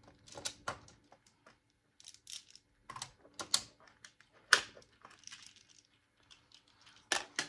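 Plastic magnetic building tiles clicking and clacking together as they are handled and snapped into place: a string of irregular sharp clicks, the loudest about four and a half seconds in.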